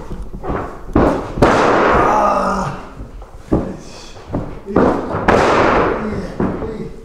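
Wrestling ring taking heavy bodies: a wrestler's footsteps and breakfalls land on the canvas with loud slams, each followed by a rattling, ringing shake of the ring. Two big bumps land about a second in and about five seconds in, with lighter knocks between.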